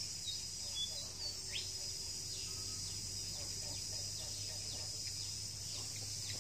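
Outdoor yard ambience: a steady high-pitched insect drone with scattered short bird chirps over it.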